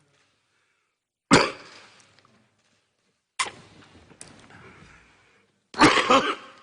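A man in a coughing fit, coughing hard into a microphone. There is one sharp cough about a second in, another at about three and a half seconds followed by a smaller one, and a loud run of coughs near the end.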